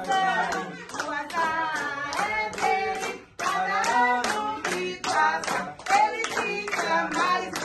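A small group of people singing a birthday song with rhythmic clapping, the claps falling at an even, steady beat.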